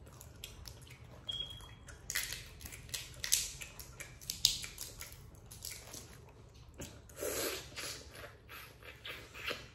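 Boiled crawfish being peeled by hand: shells crack and snap in a run of sharp clicks, with close-up wet mouth sounds of sucking and chewing. A longer sucking sound comes about seven seconds in.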